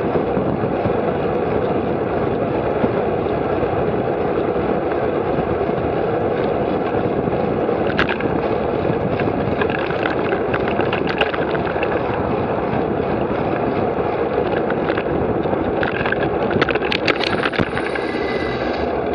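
Steady rush of wind and road noise on a bike-mounted camera's microphone while cycling at about 30 km/h. There are scattered sharp clicks and rattles, thickest near the end as the bike slows.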